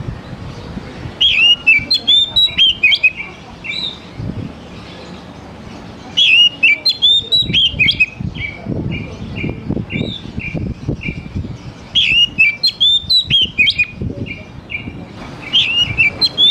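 Oriental magpie-robin (kacer) singing in loud phrases with short pauses between them: each opens with quick rising and falling whistles and runs into a rapid string of short repeated notes, the 'trotol' delivery that keepers prize. Three full phrases, with a fourth starting near the end.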